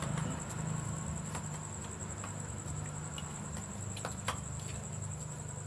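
Crickets trilling steadily at night over a low steady hum, with a few light clicks of spoons on plates as people eat.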